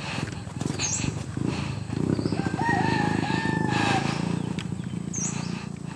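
A rooster crowing once, one long call of about two seconds starting about two seconds in, over a steady low background noise. Short high bird chirps come near the start and near the end.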